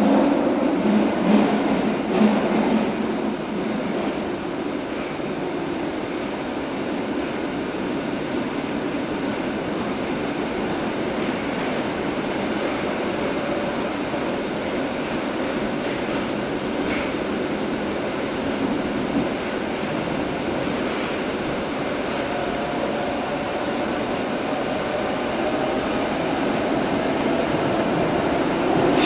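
Metro train running, heard from inside the carriage: a steady rumble and rattle of the car, with a few knocks in the first couple of seconds. It grows louder near the end as a faint whine comes in.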